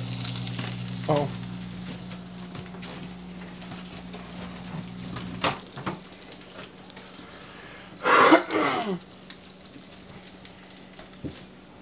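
Eggs frying in bacon grease in a pan: a steady sizzle. A low steady hum stops with a click about halfway through, and a short burst of voice comes about eight seconds in.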